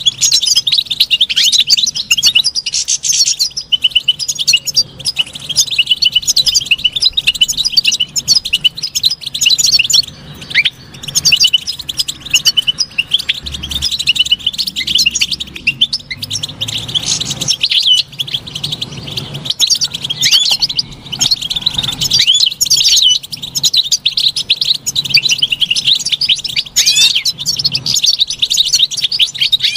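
European goldfinch song: a continuous, fast twittering of high chirps and trills, briefly pausing about ten seconds in and again a little after twenty seconds.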